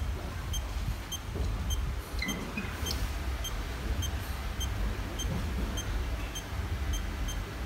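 Steady low rumble or hum, with faint short high ticks repeating about twice a second.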